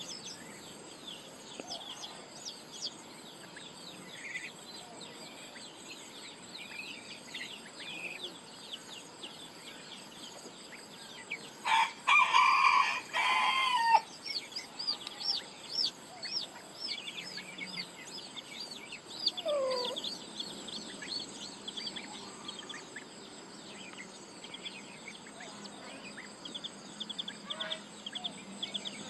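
A rooster crows once, about two seconds long, a little before the middle. Rapid high chirping from small birds runs through the rest.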